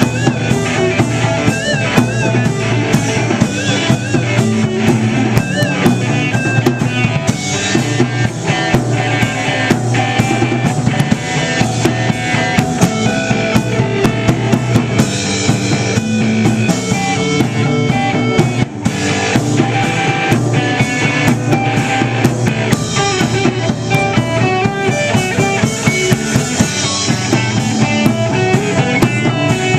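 Live rock band playing an instrumental passage without vocals: drum kit keeping a steady beat under guitar, with a wavering lead melody in the first few seconds.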